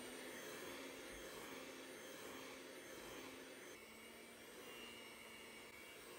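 Electric hand mixer running steadily, its beaters mixing flour and cocoa powder into thick chocolate cake batter in a glass bowl.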